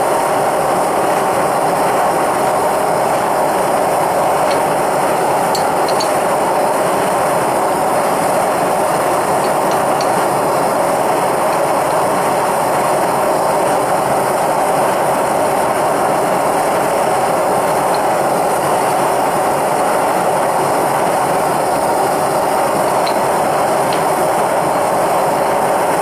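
Propane-fired melting furnace's burner running: a steady, even rushing hiss of the gas flame firing into the furnace.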